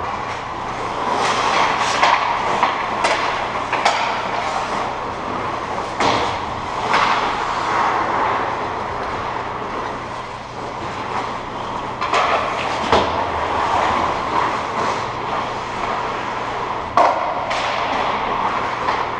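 Ice hockey being played in an indoor rink: skate blades carving and scraping across the ice in a continuous rasp, broken by sharp irregular clacks of sticks and puck against each other and the boards, over a steady low hum.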